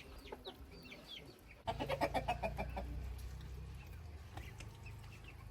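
Chickens: thin, falling chick-like peeps, then a rapid run of hen clucks about a third of the way in, over a low steady rumble.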